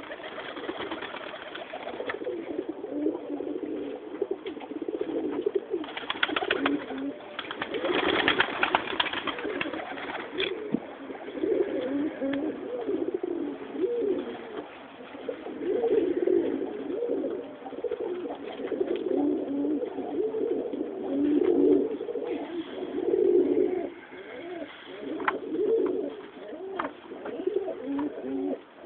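Domestic tumbler and tippler pigeons cooing continuously, many low warbling coos overlapping, with a flurry of rustling noise from about six to ten seconds in.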